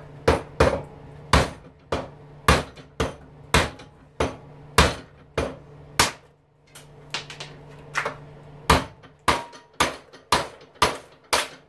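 Hammer driving a chisel against stuck screw heads on an electric lawnmower motor's housing: about twenty sharp blows in two runs, with a short pause about six seconds in, busting the screw heads off.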